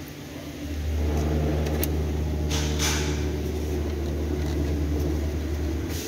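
A steady low mechanical hum that starts about a second in and stops just before the end, with a short rustling noise near the middle.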